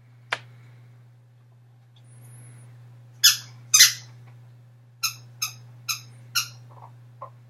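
A dog working a squeaky toy: two loud squeaks about three seconds in, then four shorter squeaks in an even run about half a second apart, and two fainter, lower ones near the end. A sharp click comes just before them.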